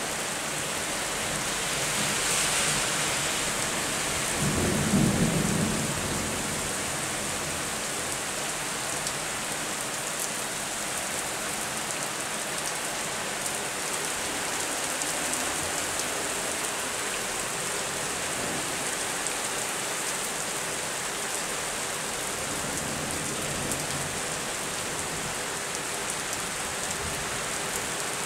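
Steady rain hiss with a thunderclap about two seconds in that rolls into a low rumble, loudest around five seconds, then dies back under the rain.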